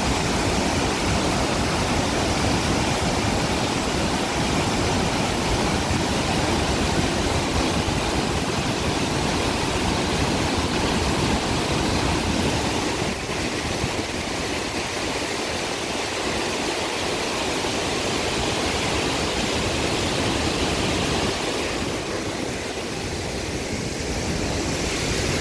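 Floodwater pouring through the open spillway gates of the Sông Ba Hạ hydropower dam during a flood release: a steady, even rush of falling water.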